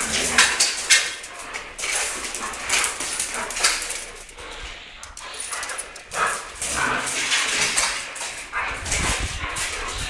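Huskies playing rough together: short barks and whines among busy scuffling and clattering.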